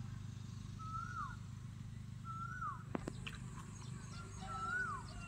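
A bird calling three times, a short whistle that rises and then drops sharply, with a low steady hum underneath and a single sharp click about three seconds in.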